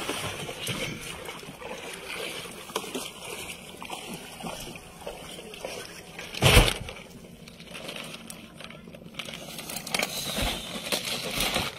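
Water sloshing and splashing, with scattered small knocks and one heavy thump about six and a half seconds in.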